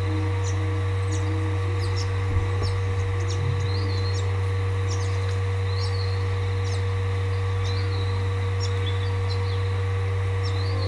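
Small birds chirping in many short, high calls throughout, over a steady low hum.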